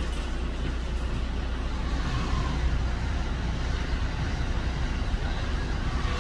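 Train running past, a steady low rumble with rail noise.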